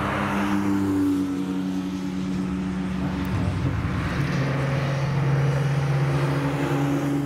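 Racing car engines running at steady revs, the note dropping in steps a few times, about one, three and four seconds in, over a rushing hiss of wind and tyre noise.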